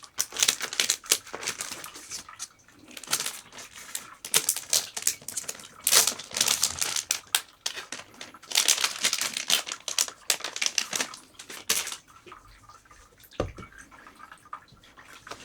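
Irregular bursts of crinkling and rustling with quick clicks: material being handled, repeating several times with short pauses between.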